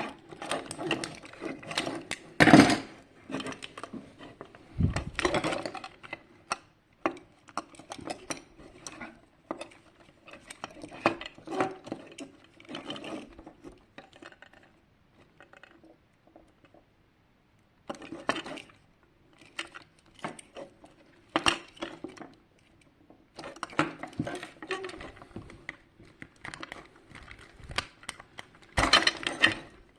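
Irregular clicks, taps and clatter of small plastic and metal parts being handled and set down as a plastic alarm clock is taken apart. There is a louder knock about two and a half seconds in and another near the end, and a few seconds of near silence in the middle.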